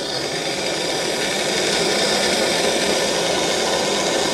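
Gas blowtorch flame burning steadily, heating a copper disc to melt the solder holding two wires.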